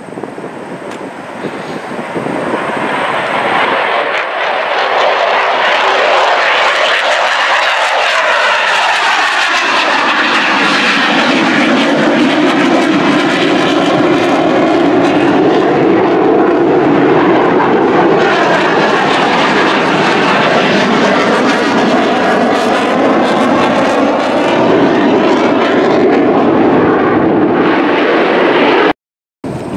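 Military fighter jet passing low overhead. Its engine noise builds over the first few seconds into loud, steady jet noise with a sweeping, phasing tone as it goes by, then cuts off abruptly near the end.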